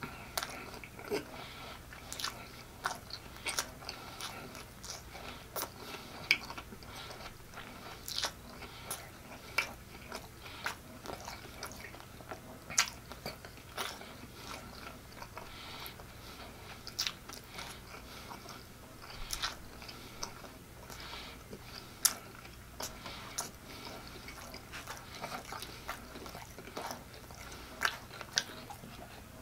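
Close-miked chewing of a mouthful of soft flour-tortilla taco: irregular wet mouth clicks and smacks, a few of them sharper and louder.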